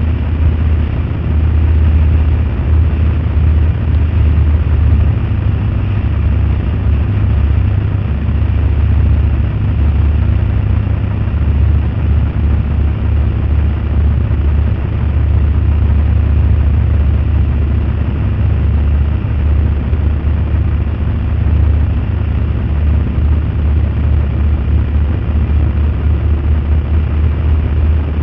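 Steady, loud wind rumble buffeting the microphone, mixed with engine and road noise, heard while travelling at road speed among a group of motorcycles.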